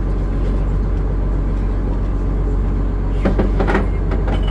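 A tour boat's engine running steadily, a constant low drone heard from on board, with a brief higher-pitched sound about three seconds in.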